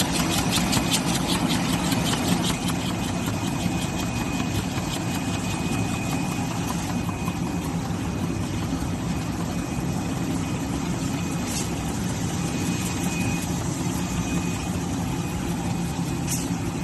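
Automatic folder gluer for corrugated cardboard boxes running: a steady mechanical hum with a rapid, regular clicking from the feeder as blanks are fed, the clicking fading after about two and a half seconds.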